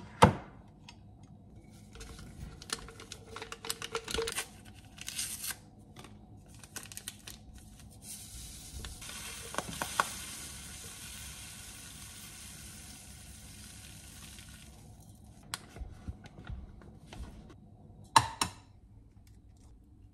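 A glass measuring jug knocks down onto a kitchen scale, and a paper packet rustles and crinkles. Sugar is then poured from the packet into the glass jug as a steady hiss lasting about seven seconds. Near the end comes a sharp double crack of an egg being broken.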